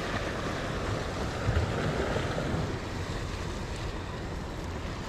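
Steady wind noise buffeting the microphone, mixed with the wash of the sea, gusting a little louder about a second and a half in.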